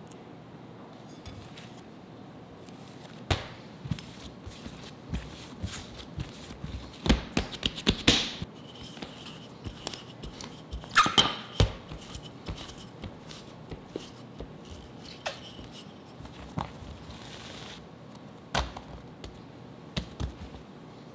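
A wooden rolling pin and hands working bread dough on a stainless steel bench: irregular knocks, taps and thuds as the pin presses the dough out and the hands pat it flat, loudest in a few clusters around the middle.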